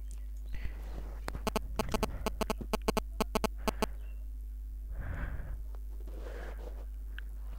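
A quick run of about a dozen sharp clicks over two and a half seconds from a computer's mouse and keys being worked, over a steady electrical hum. Near the end come a couple of soft breaths.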